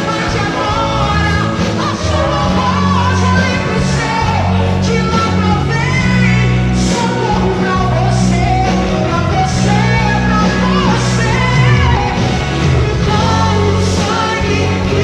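Live church worship music: a woman singing into a microphone over an amplified instrumental accompaniment with a steady bass line.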